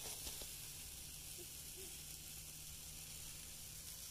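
Food sizzling on a grill: a steady, even hiss with no breaks.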